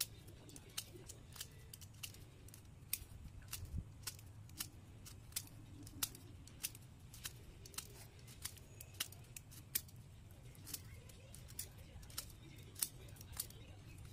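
Small knife blade whittling a block of glued ice cream sticks: crisp, short snicks, irregular and about two a second, as each stroke shaves off wood, over a faint steady low hum.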